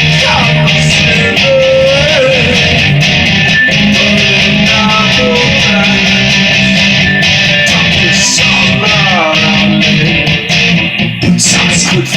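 Electric guitar playing an instrumental passage: ringing chords with a lead line of sliding, bent notes over them. There are a few short breaks in the playing near the end. It is recorded on a phone.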